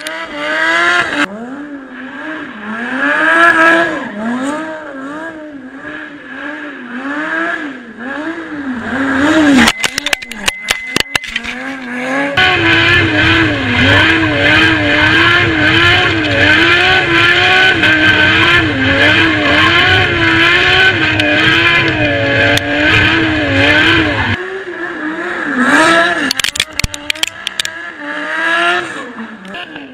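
Lamborghini Gallardo's V10 engine revving up and down again and again as the car drifts with its wheels spinning, with tyre squeal over it. A steadier stretch in the middle carries a deep rumble, and short clusters of sharp crackles come about ten seconds in and again near the end.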